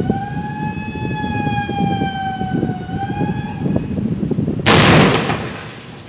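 A warning siren wails with a slowly rising and falling tone, then stops. About a second later, demolition blasting charges go off in one loud explosion that booms and dies away over about a second.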